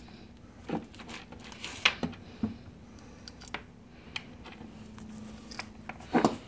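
Scattered light clicks and taps of small metal parts and a screwdriver being picked up and handled on a wooden workbench, with a louder knock about six seconds in.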